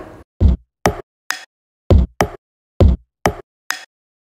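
A beat played on a tablet sampler's pads from home-recorded found sounds: deep thumps mixed with sharper knocks, about two hits a second, each hit cut off short.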